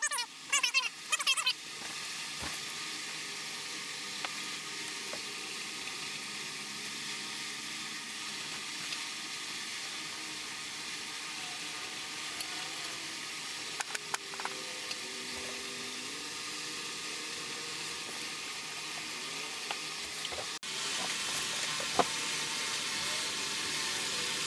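Small brass wire brush scrubbing engine bearing saddles and bearing shells, a steady scratchy hiss with a few clicks near the middle.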